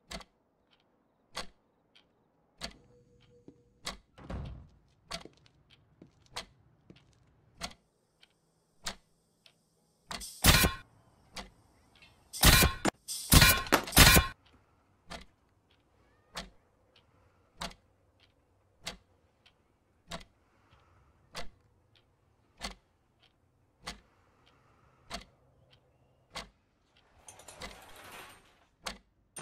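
A slow, even ticking, one sharp tick about every second and a quarter, like a clock. Just before the middle, four loud sharp blasts break in, and a short rushing noise comes near the end.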